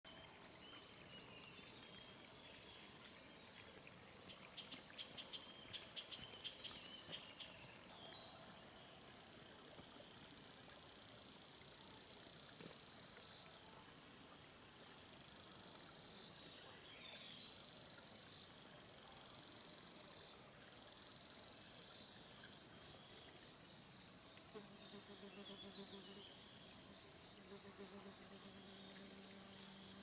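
Forest insects calling in a steady high-pitched chorus, with several louder rising calls standing out between about 13 and 22 seconds in. A low hum joins near the end.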